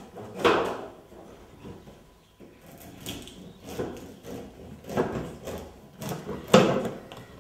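Knife sawing through a hard, days-old loaf of bread on a wooden cutting board: several irregular rasping strokes, the loudest near the end.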